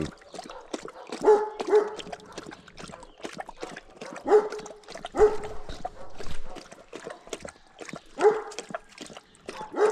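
A livestock guardian dog barking in short, pitched yips, about six spread through a few seconds, with quicker clicking sounds between them.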